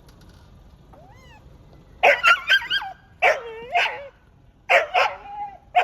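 Dog barking in short, high yelps in three quick bunches, after a faint whine.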